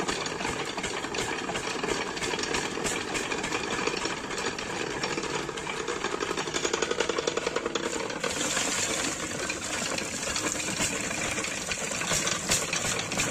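Stationary diesel engine running steadily with a fast, even knocking beat, driving a belt-driven centrifugal water pump. From about eight seconds in, the splashing hiss of water gushing out of the pump's outlet joins it: the pump has primed and is delivering water.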